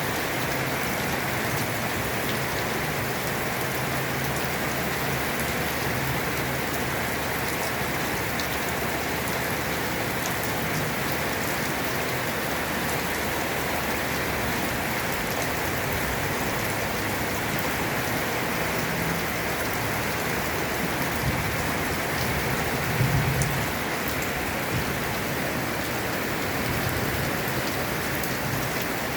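Heavy rain falling steadily, a dense even hiss of drops. About three-quarters of the way through there is a brief low thump.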